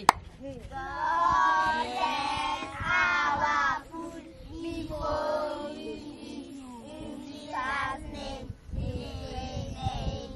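A group of children singing a grace together before a meal, in held, bending phrases. A sharp click sounds right at the start.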